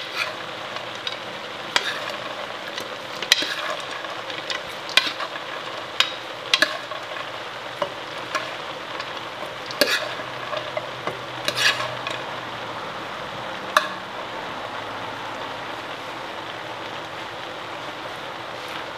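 Chicken, peanuts and vegetables sizzling in a stir-fry pan as they are stirred: a steady frying hiss with irregular knocks and scrapes of the stirring utensil against the pan, which thin out after about 14 seconds.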